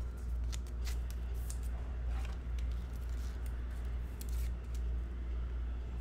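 A few short scrapes and clicks of a paper trading card being handled and slid into a rigid plastic card holder, over a steady low hum.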